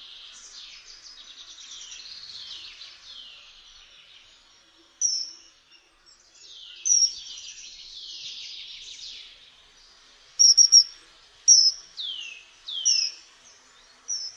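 Common kingfisher calling: short, shrill, high whistled calls, with a quick run of three about ten seconds in and a couple of loud calls sliding down in pitch near the end. Fainter twittering and downward-sliding whistles run underneath.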